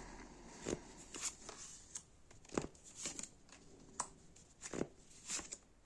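Tarot cards being handled on a table: faint, irregular taps and rustles about every half second as cards are shuffled and laid out.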